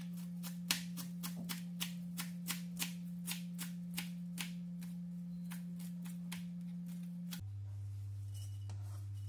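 Knife chopping fresh parsley on a cutting board: a run of sharp taps, about three a second, loudest in the first four seconds and fading away in the second half, over a steady low hum.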